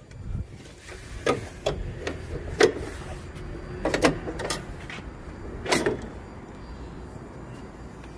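Metal knocks and rattles of a Kubota M105X tractor's hood being unlatched and swung open: about six sharp clanks over several seconds, some with a short metallic ring.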